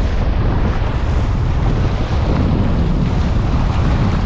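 Surf washing over a rocky reef, with wind buffeting the microphone in a steady low rumble.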